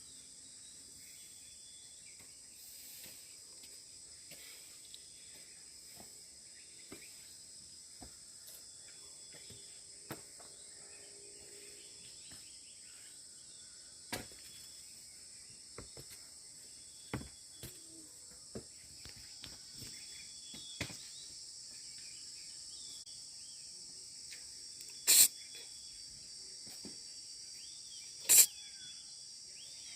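Steady high-pitched drone of a forest insect chorus. Faint clicks are scattered through it, and two loud sharp clicks come near the end, about three seconds apart.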